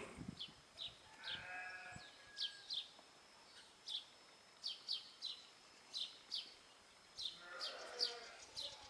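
Small bird chirping over and over in short, high chirps that fall in pitch, often in quick pairs. Twice, about a second in and again near the end, an animal gives a wavering bleat, as of a sheep or goat.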